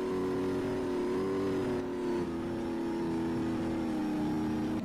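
A steady, engine-like motor drone holding an even pitch, with a brief dip about two seconds in.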